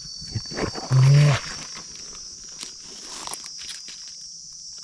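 A steady high-pitched chorus of forest insects, with scattered crunching and rustling in dry leaf litter. A short, loud vocal sound from a person comes about a second in.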